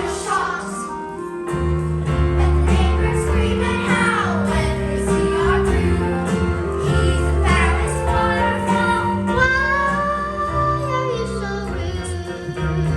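Children singing a musical-theatre song over instrumental accompaniment, with sliding pitches and long held notes over a steady bass line.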